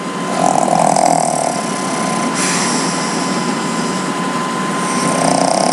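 A pet snoring, two louder snores about four and a half seconds apart with a steady breathy noise between them. A thin steady tone runs underneath.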